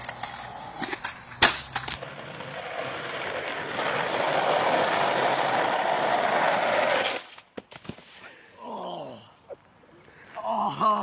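Skateboard clattering with sharp clacks of the board, one very loud crack about one and a half seconds in. Then skateboard wheels roll steadily on asphalt for about five seconds, growing louder as the board picks up speed. Near the end a person shouts.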